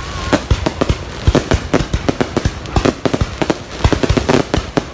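Fireworks going off: rapid, irregular bangs and crackles, several a second, some louder and closer than others.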